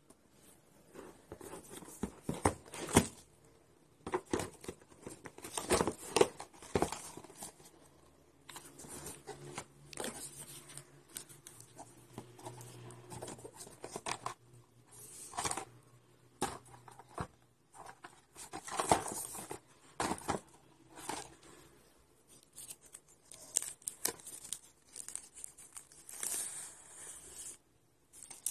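Smartphone cardboard box being opened and unpacked by hand: the lid slides off, and cardboard and plastic wrap rub and scrape, with irregular sharp taps and knocks as the phone is lifted out.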